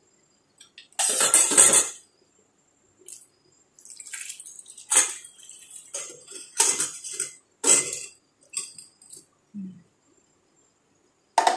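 Canned tuna and its brine tipped out of an opened tin into a stainless-steel bowl: a splashing pour about a second in, then several short wet splashes and scrapes as the fish is shaken and spooned out of the can.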